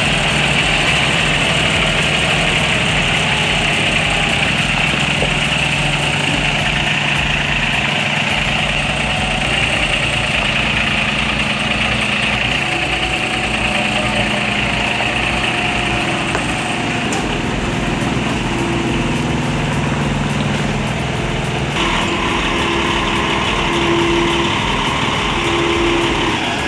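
Diesel engine of a 60-ton Grove mobile crane running steadily under way, its note drifting up and down in pitch. The sound changes abruptly near the end.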